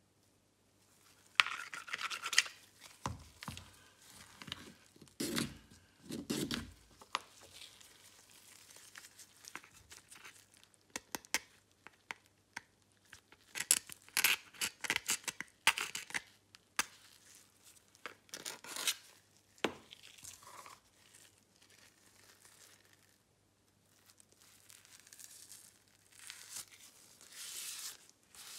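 A coin and a pointed metal tool scratching across the plastic back panel of a Samsung Galaxy A50: rough scraping strokes in irregular bursts, some of them sharp and loud, with a quieter stretch past the middle.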